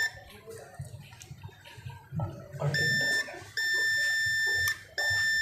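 Digital multimeter's continuity buzzer, in diode and beep mode, sounding a steady high beep three times in the second half, each for about a second, as the probe touches a capacitor shorted to ground on the phone's VREG BOB power line.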